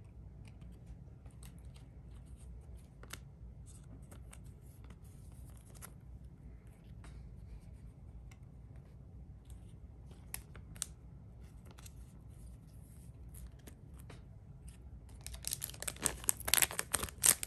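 Soft scattered ticks of trading cards being handled, then near the end a Cardfight!! Vanguard booster pack's foil wrapper being torn open, crinkling loudly.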